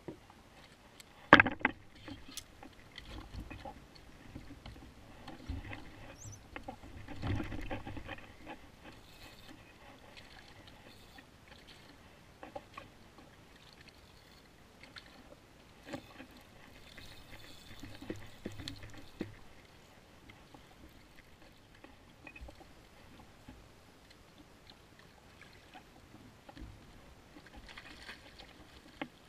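Water slapping against a fishing kayak's hull, with scattered knocks and clicks of tackle being handled on deck; one sharp click about a second and a half in.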